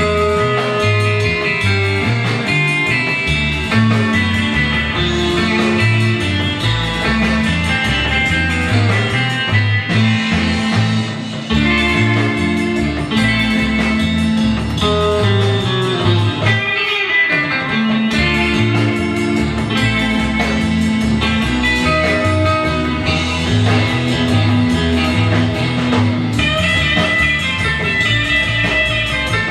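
Rockabilly record playing: electric guitar over a bass line that steps from note to note.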